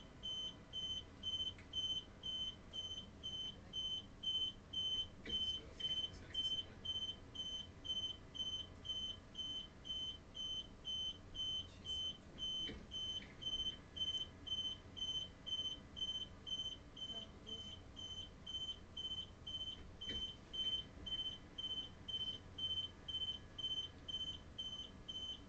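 Train door warning beeper sounding on and on, a high steady beep about twice a second that does not stop: the doors have failed to close and lock properly.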